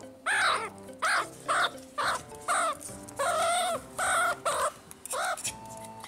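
Meerkat giving a string of loud, harsh barking calls about twice a second, with one longer drawn-out call midway: alarm calls at the Roomba. Background music plays underneath.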